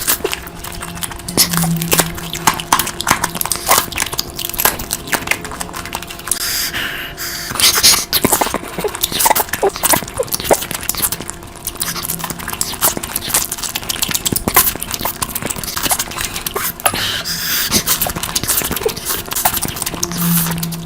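Close-miked eating of curry: wet chewing and mouth clicks throughout, with two longer slurping, sucking hisses, one about a third of the way in and one near the end.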